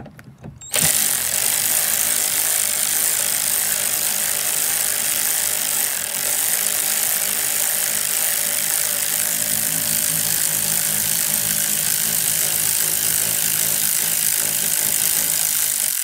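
Power tool spinning a socket on a long extension, backing out one of the long mounting bolts that hold an RV rooftop air conditioner to the roof. It starts about a second in and runs steadily.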